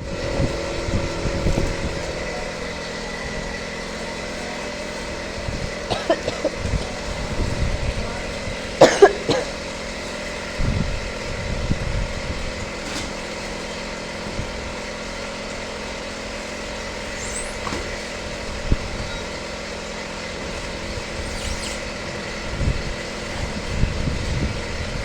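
Heavy engine lathe running steadily, its gears giving a constant hum and whine, with a loud metallic clatter about nine seconds in and a few lighter knocks.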